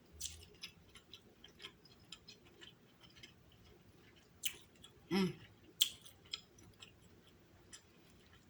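Close-miked chewing of king crab meat: soft, wet mouth clicks and smacks scattered throughout, with a short low hum of enjoyment from the eater about five seconds in.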